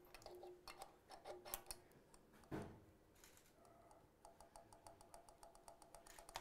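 Faint metallic clicks and ticks of a roller rocker arm and an adjustable checking pushrod being handled and adjusted on an aluminium cylinder head, for setting pushrod length. Scattered clicks, then a fast, even run of ticks for about two seconds near the end.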